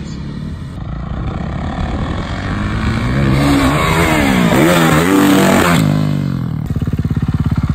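Dirt bike engine revving, its pitch rising and falling several times and loudest in the middle. Near the end an engine close by runs at lower revs with a rapid, even beat.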